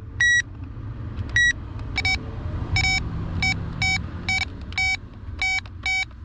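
Power Probe circuit tester beeping as its tip is touched to fuse terminals one after another. There are two high beeps early on, then about a second in it switches to a lower-pitched beep repeated roughly twice a second, its tone changing with the polarity it reads. A steady low rumble runs underneath.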